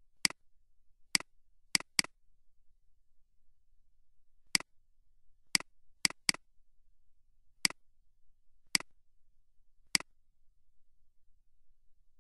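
Computer mouse button clicks, about eleven single sharp clicks at irregular spacing, some in quick pairs, as editor tabs are switched and text is selected.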